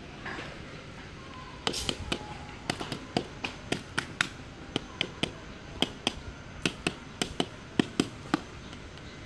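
Thin plastic cup and plastic pots being handled, giving a rapid, irregular string of sharp light clicks and taps, about three a second, starting a little under two seconds in and stopping near the end.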